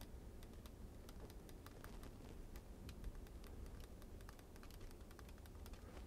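Faint, quick, irregular light clicking of an Xbox One controller trigger being pressed over and over, as the repaired trigger is tested.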